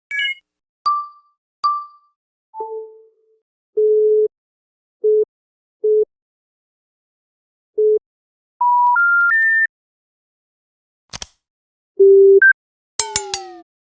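A run of separate iPhone notification and alert tones: a few short dings near the start, then single electronic beeps at one low pitch, three beeps stepping up in pitch, a sharp click, and two tones that fall in pitch near the end.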